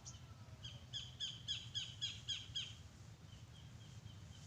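A bird calling: a quick series of about eight short, falling, chirp-like notes, roughly four a second, then a few fainter, slower notes.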